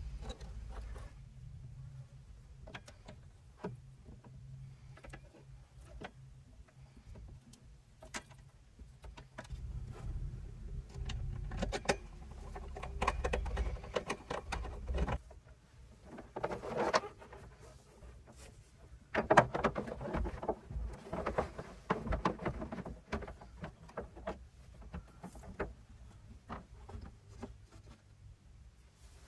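Hands handling electrical wires and small connectors: scattered clicks, taps and rustling, with a low steady rumble under the first half.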